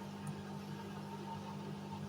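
Hoover Sudslock washing machine running with a steady low hum.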